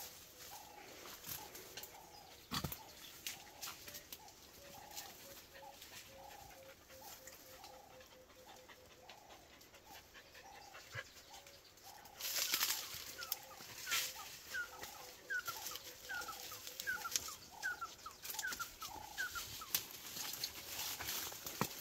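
Leaves, grass and twigs rustling and crackling as people push on foot through dense bush, louder from about halfway. A bird repeats a short call about twice a second throughout, and a run of short rising chirps comes in during the louder second half.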